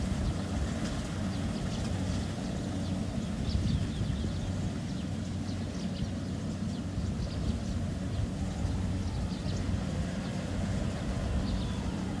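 Kubota DC70 combine harvester's diesel engine running steadily, a constant low hum.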